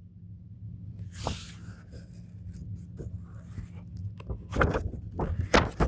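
Pages of a small children's picture book being turned and handled. There is a papery swish about a second in, then scattered light rustles and taps over a steady low hum.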